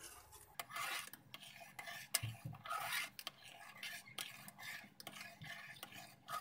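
A metal spoon stirring and scraping around a metal pot of hot milk, about two scraping strokes a second with a few sharp clinks against the pot. The milk is being stirred as the added lemon juice curdles it into chhena.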